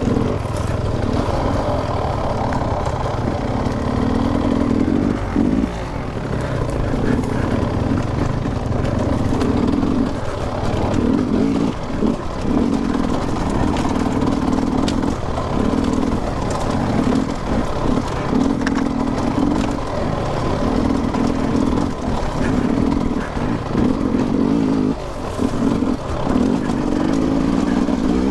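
Two-stroke enduro dirt bike engine, heard from the rider's helmet camera, revving up and easing off every second or two as it picks its way along a rough trail.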